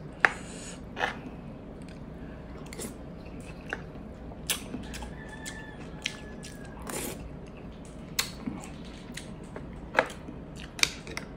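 Close-up eating sounds: food being chewed and bitten, with a handful of sharp clicks, the loudest near the start, as a fork scrapes and taps the dish.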